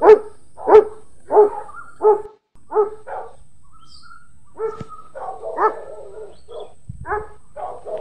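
A dog barking repeatedly. It gives about six evenly spaced barks, roughly one every two-thirds of a second. After a short pause it breaks into a quicker, more jumbled run of barks.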